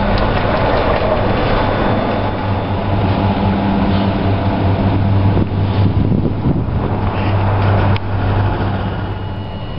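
Doppelmayr eight-seat detachable gondola lift running on test: a steady, loud mechanical hum from the lift machinery as cabins move through the station and along the rope. The sound changes abruptly about five and a half seconds in and again near eight seconds, and is a little quieter after the second change.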